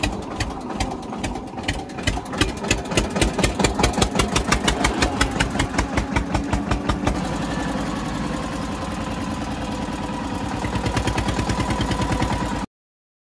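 Eicher 242 tractor's single-cylinder diesel engine running as the tractor drives, a steady thumping of about six beats a second. Partway through it turns faster and smoother, and it cuts off suddenly near the end.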